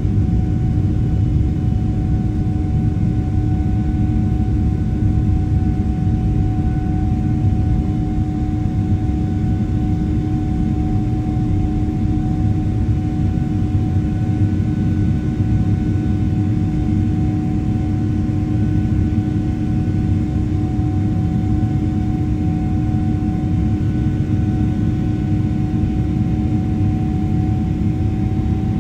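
Jet airliner engines at takeoff thrust: a steady, loud low rumble with a constant humming tone running through it.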